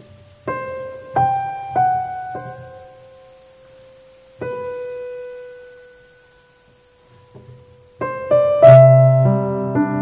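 Solo piano background music: slow, sparse single notes, one left ringing and fading away, then fuller chords with low bass notes from about eight seconds in.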